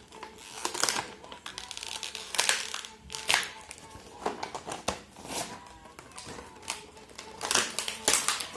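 Crinkly plastic toy packaging rustling and crackling in irregular bursts as it is handled and torn open, with faint background music underneath.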